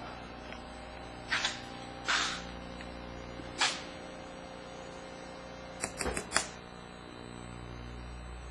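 Small CNC engraving machine at work: a steady hum with a held tone, broken by three short rushing bursts and then a quick run of clicks about six seconds in.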